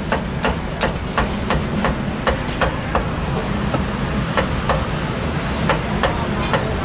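Meat cleaver chopping braised pork offal on a thick round wooden chopping block, a steady run of sharp knocks about three a second.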